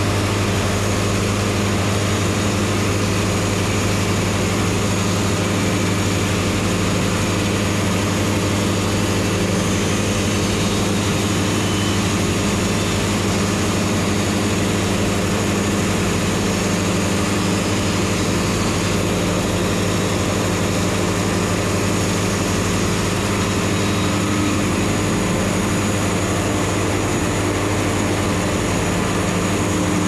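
Wood-Mizer LT70 portable band sawmill running steadily, its engine humming without a break while the band blade saws through a cedar log.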